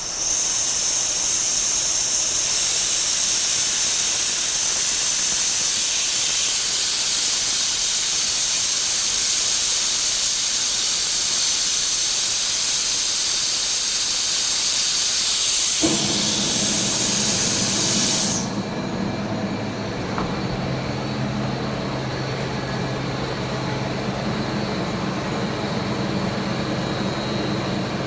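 Compressed air rushing out of an opened release valve on the receiver tank, a loud steady hiss. About sixteen seconds in, the single-stage rotary screw compressor and its 5 hp motor start up as air is drawn off, and a couple of seconds later the hiss stops, leaving the compressor running steadily.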